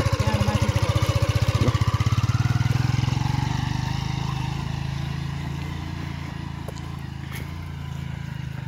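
Motorcycle engine running just after being started, then pulling away and fading as the bike moves off, quieter after about three and a half seconds.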